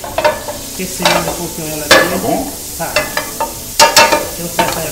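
Butter sizzling as it melts in a hot aluminium frying pan, with several sharp clinks of a utensil against the pan as it is stirred.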